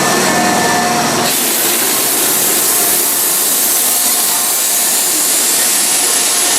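Train running noise: a loud, steady rushing hiss. About a second in it changes abruptly to a thinner, higher hiss.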